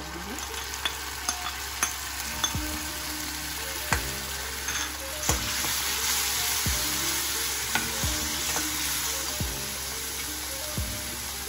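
Tomato purée sizzling as it hits hot oil and onions in a stainless-steel kadai, stirred with a metal spoon that clinks and scrapes against the pan now and then.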